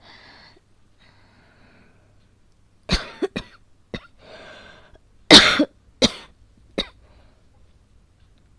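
A woman coughing in an asthma attack: a fit of about seven harsh coughs in bursts, the loudest about halfway through, with hissing drawn breaths between them.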